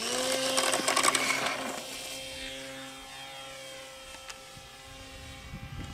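Radio-controlled model airplane's motor and propeller starting up suddenly to full power for takeoff, with a loud rushing noise for about the first two seconds. It then settles into a steady drone that slowly fades as the plane climbs away.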